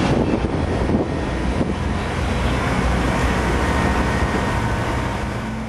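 Heavy truck engine running steadily, a low hum under broad mechanical noise.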